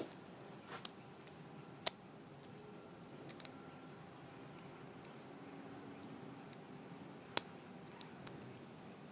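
Lock pick and tension wrench working the five pin stacks of a Squire Leopard LP10 brass padlock: scattered small, sharp metallic clicks, with two louder ones about two seconds in and again about seven seconds in.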